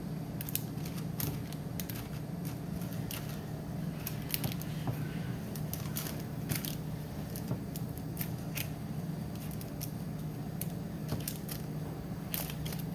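Silicone spatula pressing and smoothing a sticky sesame-seed and sorghum mixture into a parchment-lined glass baking dish: irregular light scrapes, clicks and crinkles of the seeds and parchment paper, over a steady low hum.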